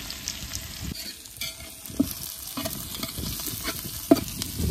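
Sliced onions sizzling in hot oil in a large metal pot while a metal spatula stirs them, scraping against the pot, with a few sharp knocks of the spatula on the pot about two and four seconds in.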